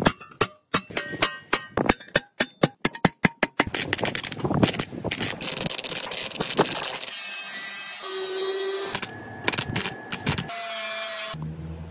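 Wire-feed (MIG) welder arcing on a steel motorcycle mudguard. First comes a quick series of short crackling bursts, then longer stretches of steady crackle.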